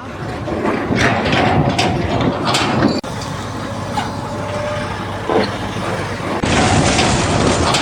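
Mechanical noise of heavy vehicles or machinery at work, with short squeaks and clicks. It changes abruptly about three seconds in and again near six and a half seconds, as one clip cuts to the next.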